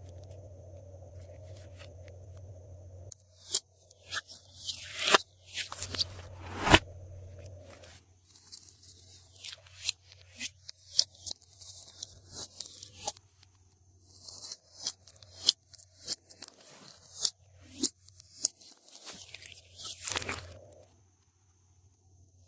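Glossy slime being handled and mixed with add-ins: irregular sticky pops, crackles and crunches, some in quick clusters, with short pauses between.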